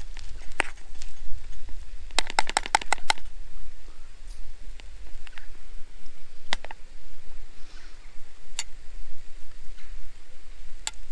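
Metal spoon and mess tin being handled on a small folding wood-burning stove: scattered sharp clicks of metal on metal, with a quick rattle of about seven clicks a couple of seconds in, over a low rumble.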